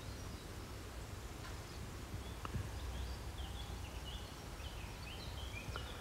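Outdoor ambience of wind rumbling on the microphone, with birds chirping in quick, short high notes through the second half.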